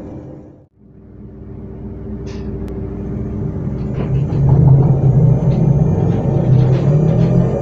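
Z 20892, a Z2N double-deck electric train: its low running rumble with steady motor tones fades out under a second in. After a brief gap the rumble builds up again, with scattered clicks and knocks, and is loudest over the second half.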